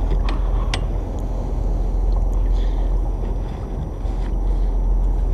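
Steady low rumble of wind buffeting the microphone aboard a small boat, with a few light knocks.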